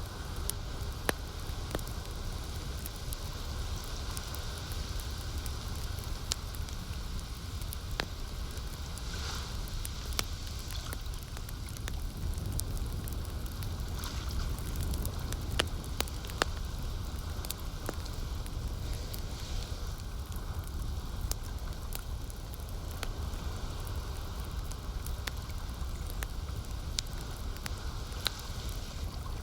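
Campfire crackling: scattered sharp pops and snaps over a steady hiss and low rumble, with lake water lapping underneath.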